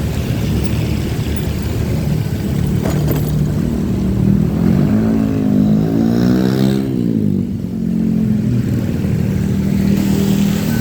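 Motorcycle engine running steadily while riding, with road and wind noise; a little past halfway the engine note climbs and falls again for a couple of seconds.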